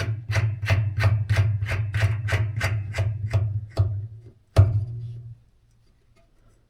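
Background music with a steady percussive beat, about three strikes a second over a low sustained bass, ending about five seconds in.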